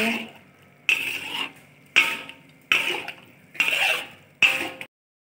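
A utensil stirring and tossing curry instant noodles and prawns in a wok: six scraping strokes about one a second, each fading quickly. The sound cuts off suddenly near the end.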